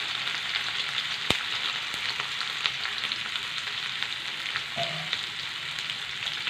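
Parboiled cauliflower florets sizzling and crackling in hot mustard oil in a kadhai on high flame, with a single sharp click a little over a second in.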